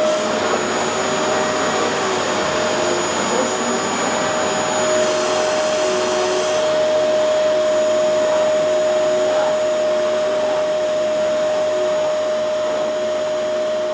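Vacuum cleaner running steadily, its motor giving a constant whine over the rush of suction air, with a brief extra high hiss about five seconds in.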